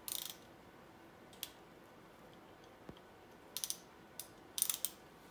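Hand ratchet clicking in a few short bursts with pauses between, as it is swung back and forth on a 9/16 oil pump bolt.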